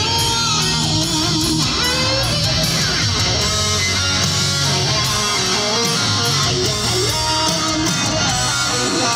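Loud live hard rock band playing, led by an electric guitar with sustained, bending notes and a falling slide about three seconds in, heard from the audience.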